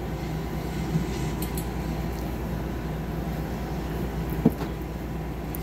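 A steady low background hum, with one short knock about four and a half seconds in.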